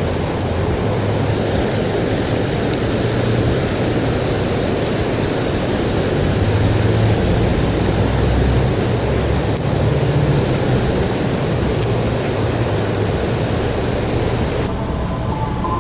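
Steady rushing of river rapids, an even loud water noise. Near the end it changes abruptly to a duller, lower noise.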